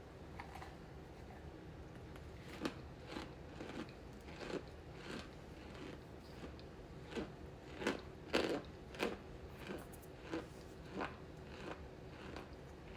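Close-up chewing of a crunchy snack mix: irregular crisp crunches about every half second, starting a couple of seconds in and loudest a little past the middle.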